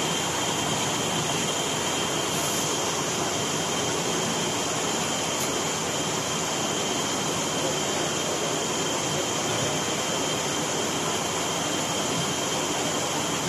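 Curve edge banding machine running steadily, a continuous machine noise with a thin, steady high-pitched whine over it.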